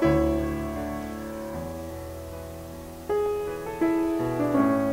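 Background piano music: chords struck every second or so, each ringing and fading away before the next.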